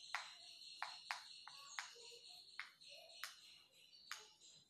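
Chalk writing on a blackboard: a run of faint, sharp taps and short scratches at an uneven pace, about eight in the few seconds, as the chalk strikes and drags across the board. A steady faint high-pitched background drone runs underneath.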